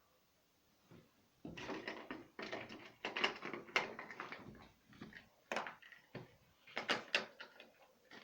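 Loud, irregular knocking, scraping and rattling at a window, starting about a second and a half in, which the listener inside takes to be a cat.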